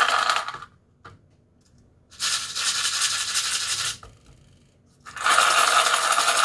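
Small dry food pieces rattling inside a plastic yogurt cup as it is shaken by hand, in three shakes of about two seconds each: one ending about half a second in, one at about two seconds in, and one starting about five seconds in.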